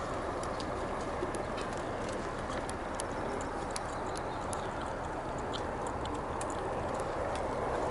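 Outdoor ambience: a steady low rush of noise with scattered short, high ticks and chirps over it.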